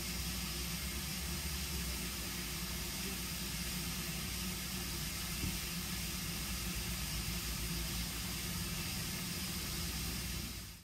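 Steady hiss of steam from GWR Large Prairie 2-6-2 tank locomotive 4144 standing at rest, over a low hum. There is one faint knock about halfway through, and the sound fades out at the very end.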